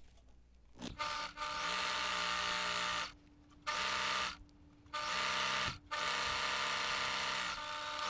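Electric sewing machine stitching a seam through cotton fabric, its motor running in four stretches of one to two seconds with short stops between, starting about a second in.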